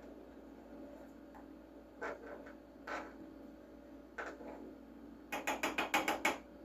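Utensil knocking against a container as chopped onion and ginger are spooned in: a few separate clicks, then a quick run of about eight taps near the end.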